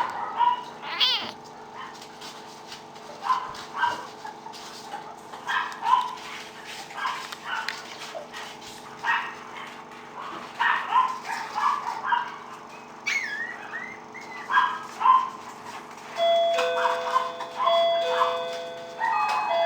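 Puppies yipping and barking in short, repeated bursts, with an occasional high whine. Near the end a run of steady, overlapping electronic chime tones sounds over the yipping.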